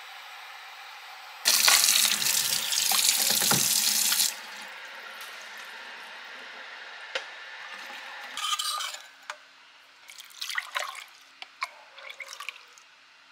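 Kitchen tap running hard into a bowl in the sink for about three seconds, filling a water bath for boiled eggs. After it come quieter kitchen handling sounds and a few short pours and clinks near the end.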